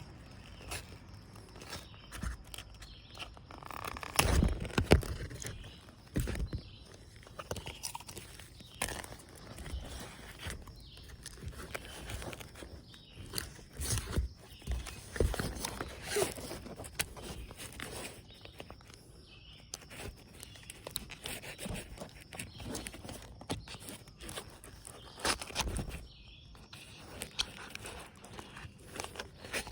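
Irregular handling noises of hands-on repair work: scrapes, rustles and knocks, with a few louder thumps about four to five seconds in.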